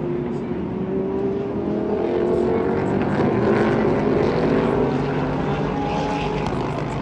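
Several race car engines running at once, the main engine note rising slowly in pitch over the first few seconds.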